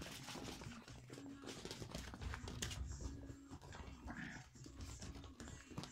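Toy poodle puppies scuffling on a fleece blanket and wooden floor: a busy run of small scratches, rustles and paw clicks. A brief high-pitched puppy whimper comes about four seconds in.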